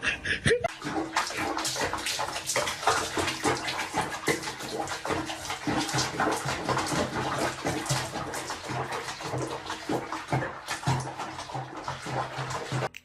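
Water sloshing and splashing irregularly in a small water-filled basin as a cat moves about in it during a bath.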